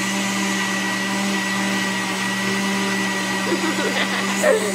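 Electric countertop blender running steadily, blending a liquid mousse mixture of milk, condensed milk, cream and gelatin, with an even motor hum.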